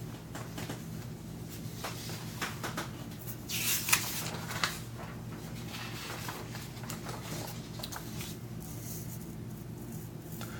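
Sheets of printer paper being picked up and laid down on a wooden table: light rustling, scraping and a few soft taps, loudest about four seconds in, over a steady low hum.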